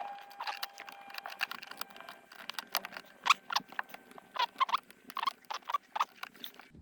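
Irregular small clicks, taps and squeaks of parts being handled and fitted as a parking brake release handle is reinstalled.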